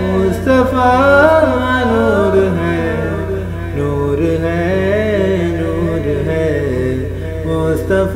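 Male voice chanting a naat melody, drawn out with long wavering pitch glides, over a steady low hum.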